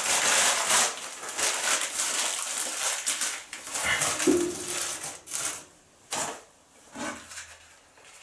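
Newspaper being torn and crumpled by hand and pushed into the firebox of a wood-burning sauna stove: a dense crackling rustle for about five seconds. It then stops, leaving a couple of soft knocks.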